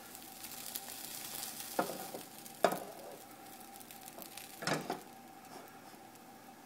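Egg omelet with chicken, onion and pepper frying in a non-stick pan, a faint steady sizzle. There is a thin steady hum behind it and a few short knocks about 2, 3 and 5 seconds in.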